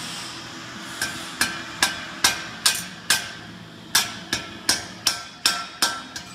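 Blacksmith's hand hammer striking forged iron scrollwork on an anvil: about thirteen sharp metallic blows, two to three a second, each with a brief ring, in two runs with a short pause between them. A steady hiss comes before the first blow, about a second in.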